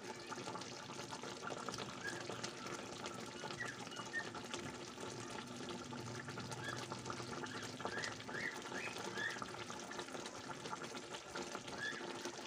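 Tilapia simmering in a thick sauce in a pan, bubbling softly with a steady crackle and short high pops scattered throughout.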